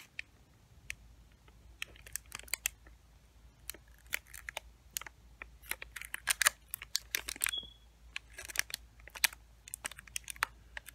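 Plastic wrapper of a king-size Milky Way bar crinkling and crackling as it is handled and turned in the hands, in scattered, irregular clicks with a few denser clusters.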